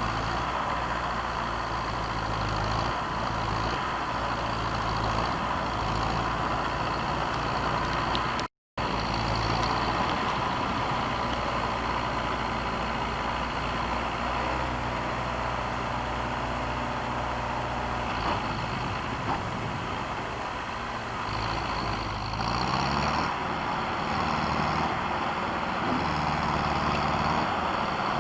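Heavy vehicle engine running steadily. It cuts out for an instant about a third of the way through, and climbs in pitch a little past three quarters of the way through as it revs up.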